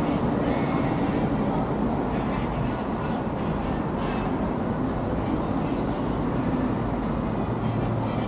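Steady city street noise: traffic running on the road alongside.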